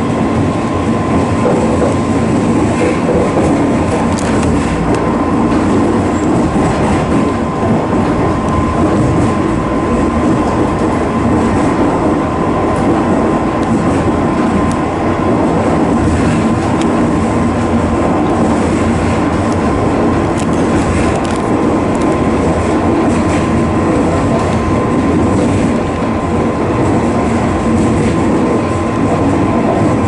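JR 185 series electric train running, with the steady noise of its wheels on the rails and its running gear heard from the driver's cab, and a faint steady high tone underneath.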